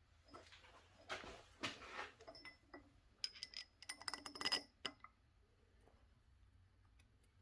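Small metal pieces being handled: a stretch of scraping and shuffling, then a quick run of sharp metallic clinks with a brief ring between about three and five seconds in.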